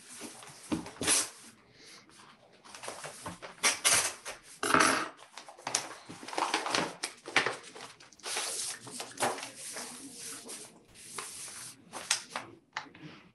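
Paper rustling and tearing in irregular bursts as a sealed bid envelope is opened and its documents are handled.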